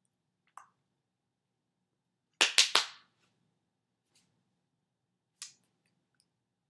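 Hands slapping together while signing: three quick, sharp slaps about two and a half seconds in, with a fainter single tap shortly after the start and another near the end.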